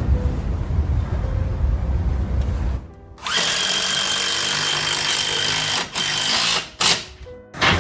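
Power drill running for about three seconds with a steady high whine, then two short bursts near the end.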